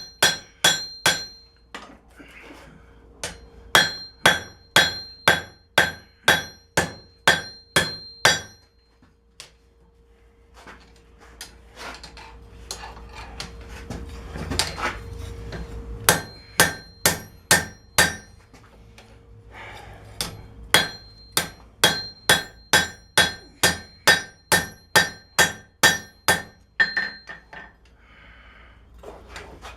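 Hand hammer striking hot steel on an anvil in runs of about two to three blows a second, each blow ringing, with short pauses and a stretch of lighter, quieter blows in the middle: drawing out the bevels of a knife blade forged from a wrench.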